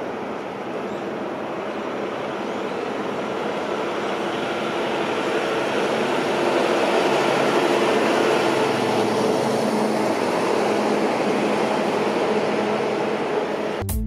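Road traffic noise: a steady rush of passing vehicles that swells over the first half, as a vehicle draws close, then holds.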